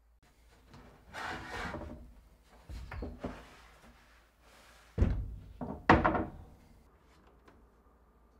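Plywood kitchen cabinet carcass being handled and shifted: scraping and rubbing of wood, then hollow wooden thunks, the two loudest about five and six seconds in.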